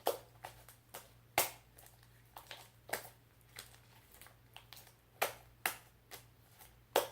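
Sticky glue slime being squeezed and kneaded by hand, giving irregular sharp wet clicks and smacks, about a dozen, a few of them louder.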